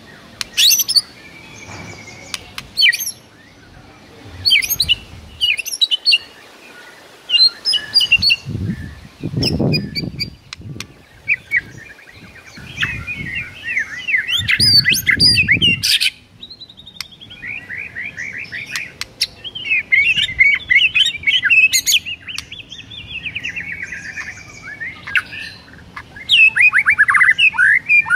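White-rumped shama singing a run of varied phrases: clear whistles, sharp chirps and fast trills, coming in bursts with short gaps. There are two stretches of low rumbling noise in the middle.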